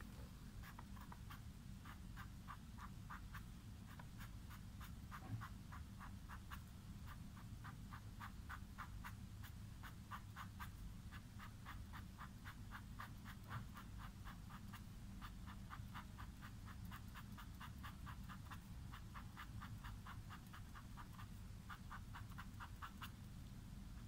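Black felt-tip marker pen scratching on paper as short lines are drawn in quick strokes, a faint dry scratch with each line, coming in runs of several strokes a second.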